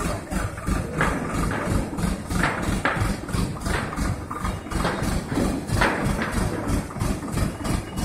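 Diesel engine of an ACE 14XW pick-and-carry crane running steadily, with a regular pulsing of about four beats a second.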